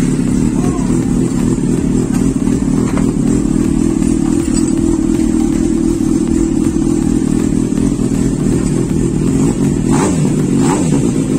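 Yamaha FZ6's 600 cc inline-four idling steadily through a newly fitted universal aftermarket slip-on silencer on a dual mid pipe.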